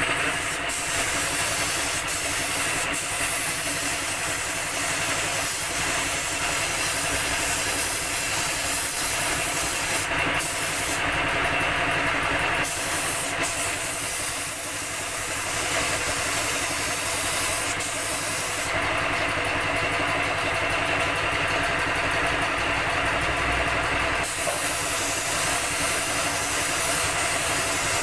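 Compressed-air paint spray gun hissing steadily, with an air compressor running underneath as a constant hum; the high hiss changes a few times.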